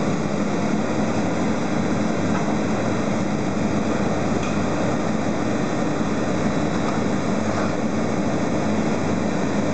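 Farm tractor's diesel engine running steadily, driving the hydraulics of a KESLA 203 T loader crane on a forestry trailer.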